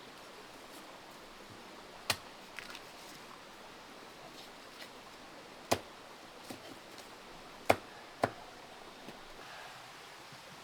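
Sharp knocks or cracks at irregular intervals: four loud ones a couple of seconds apart, with fainter taps between.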